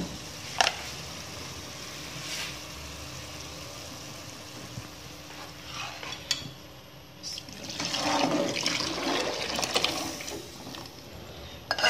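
Hot liquid being poured from one pan into another: melted malai (milk cream) and boiling sugar syrup being combined, with a steady pouring and bubbling sound. The pour gets louder and splashier about eight seconds in.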